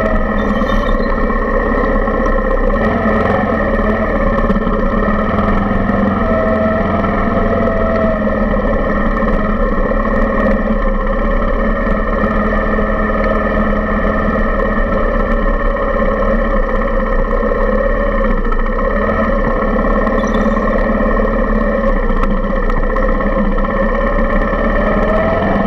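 Suzuki Intruder 125 motorcycle engine running continuously at low speed, heard through the handlebar mount, its pitch rising and falling slightly with small throttle changes.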